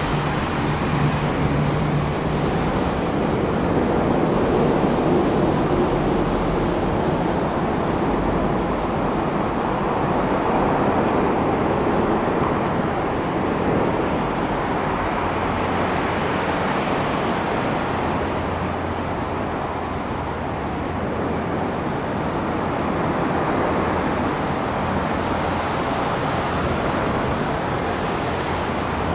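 Steady rush of city road traffic, a continuous noise with a low hum underneath.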